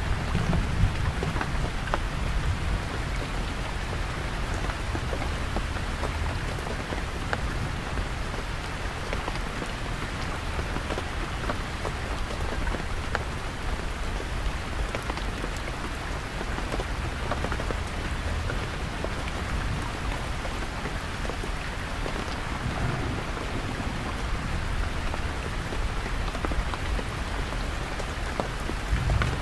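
Heavy rain falling steadily on a canvas tent, a dense hiss of many small drop taps. Under it runs a deep, distant thunder rumble that swells near the start and again near the end.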